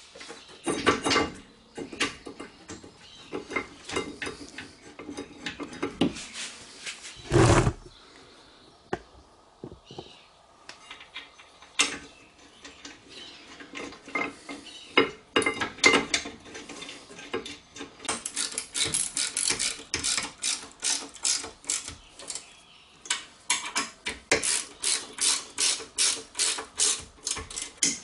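Metal clanks and knocks as a brake caliper carrier bracket is handled and fitted onto the rear hub, with one heavier thump. In the second half a hand ratchet clicks rapidly and evenly, about four clicks a second, as the carrier bolts are run in.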